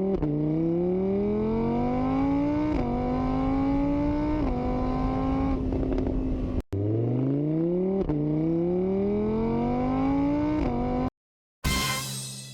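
Car engine sound effect revving up through the gears: the pitch climbs steeply, then drops a little and climbs again at each shift, twice. The run plays twice in a row, and a brief noisy burst that fades away follows near the end.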